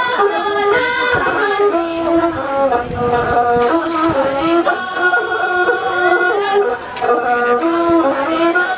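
A group of women singing a Tibetan folk song together over instrumental backing, in long held notes that step up and down in a melody.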